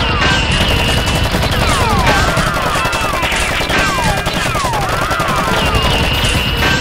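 Rapid-fire gunshot sound effects laid over a Nerf blaster fight, crackling continuously, mixed with a looping electronic backing track of falling and arching synth sweeps that repeats every couple of seconds.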